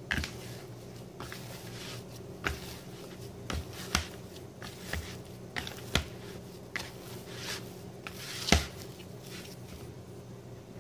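Hands punching down and folding risen yeast dough in a plastic bowl: soft irregular squishing and handling noise with sharper knocks every second or two, the loudest a little past eight seconds in.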